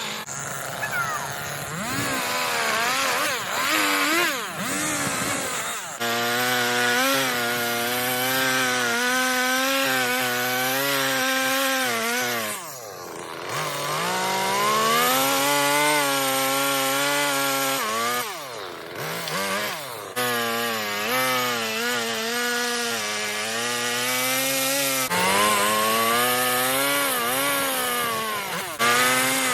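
Chainsaw running at high revs while carving wood. Its pitch wavers as the load changes, and twice the engine drops off sharply and revs back up.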